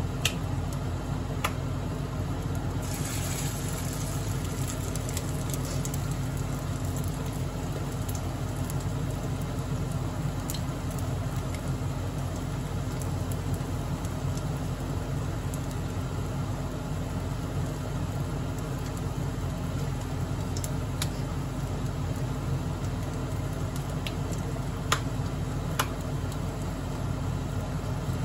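Hamburger patties frying in oil in a nonstick pan, a faint crackle with a few sharp pops of spitting oil, over a steady low fan hum from the kitchen. A brief louder sizzle comes about three seconds in.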